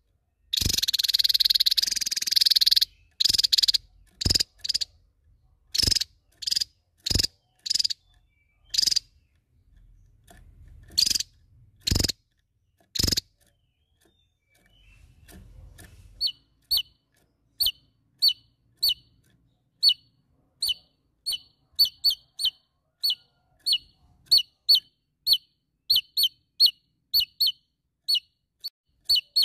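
Caged Javan tesia calling: a loud harsh rattle about half a second in, a string of sharp single calls, then from about halfway on a quick run of short, falling chirps, one or two a second.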